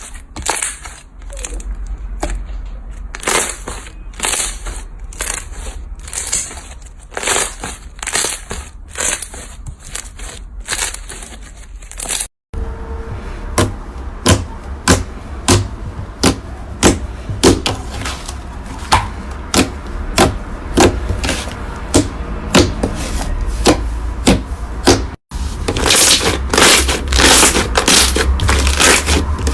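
Slime being squeezed, pressed and poked by hand, giving repeated crackling and popping clicks. The sound cuts off and changes abruptly twice.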